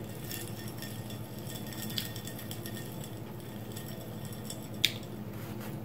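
Two light clinks from a stemmed glass of iced drink as it is lifted and sipped, about three seconds apart, over a steady low hum.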